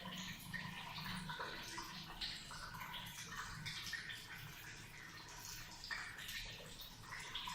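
Salt water from a neti pot trickling and dripping out of a nostril during nasal rinsing (jal neti), a faint, uneven splashing.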